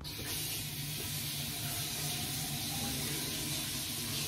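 Bathroom sink faucet turned on, water running steadily into the basin and down through a newly installed drain assembly and P-trap that is being tested for leaks.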